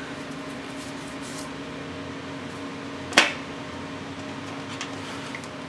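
Electric box fan running with a steady hum, and a single sharp click about three seconds in.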